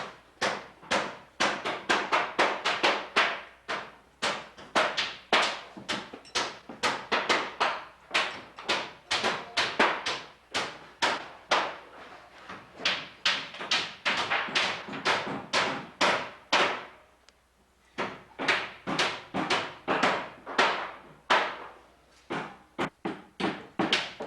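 Hammering: a long run of sharp, unevenly spaced blows, about two to three a second, with a brief pause about two-thirds of the way through.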